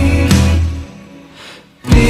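Background music with a steady beat that drops away about half a second in, leaving a brief near-quiet break, then comes back in suddenly with a sharp hit near the end.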